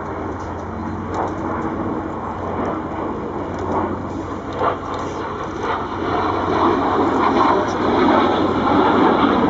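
Twin General Electric J85 turbojets of a Messerschmitt Me 262 replica flying overhead: a steady rushing jet noise that grows louder over the last few seconds as the jet comes closer.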